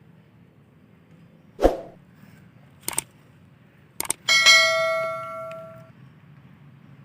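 Air rifle shot, then a sharp click, then a second shot followed almost at once by a metal silhouette target being hit. The steel target rings with a bell-like tone that fades over about a second and a half.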